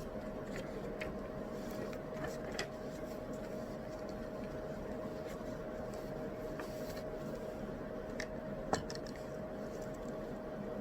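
Steady background hiss with a faint constant hum, and scattered small clicks and taps of desk work, with one sharper click about nine seconds in.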